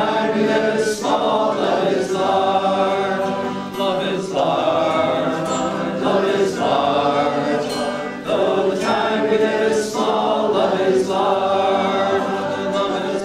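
A small group of voices singing a folk chorus together, a lead singer with backing singers, over a strummed acoustic guitar. The sung phrases come in regular lines, each broken by a short breath.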